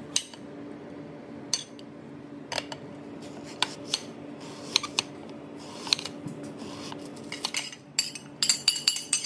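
Chef's knife slicing a coconut palm heart thinly, the blade clicking against the plate about once a second. Near the end, a quick clatter as the slices are tipped off the plate into a stainless steel bowl. A faint steady hum runs underneath.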